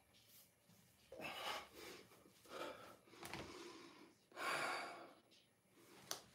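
A man breathing hard from the effort of sit-ups: three forceful, wordless exhales, the loudest about four and a half seconds in, followed by a short click near the end.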